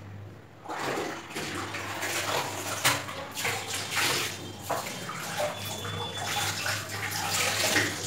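Water sloshing and splashing in a plastic bucket as cotton clothes are dunked and squeezed in starch water by hand, in irregular bursts starting about a second in.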